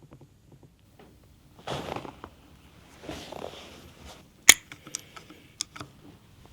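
Handling sounds of a massage and cupping session: two soft rubbing swishes, then a sharp click about four and a half seconds in, followed by a few lighter clicks.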